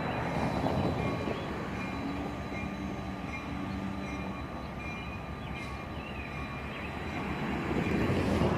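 Train rolling past: a steady rumble of rail cars on the track, swelling about a second in and again near the end.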